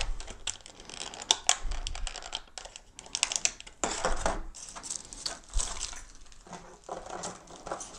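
Handling a boxed collectible starship model and its display stand: a scattered run of small clicks, taps and brief rustles.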